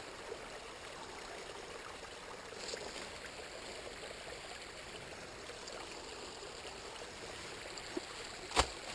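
Small spring-fed brook running over and around rocks, a steady soft water sound. One sharp knock near the end.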